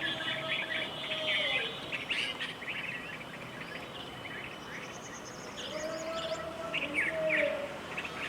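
Several songbirds chirping and calling in a morning chorus, with a quick high trill a little past the middle. A steady lower tone comes in twice under the chirping and falls away at its end.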